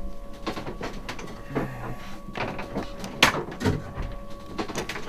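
Irregular clicks and knocks of hands and a tool working on a sailboat's inboard diesel engine while bleeding air out of its fuel system, with one sharper knock a little past three seconds in.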